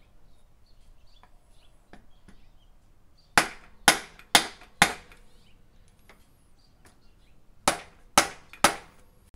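Sharp hammer taps on the loosened shaft bolts at the bottom of a RockShox Pike fork's lower legs: four quick taps about half a second apart, then three more a few seconds later. The taps knock the bolts upward to break the internal shafts free so the lower leg can be pulled off.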